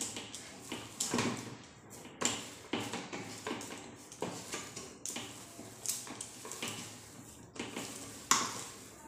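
Hands kneading a soft, oiled potato-and-flour dough in a steel plate: irregular short knocks of the plate and clinks of glass bangles with each stroke, about two a second, the loudest near the end.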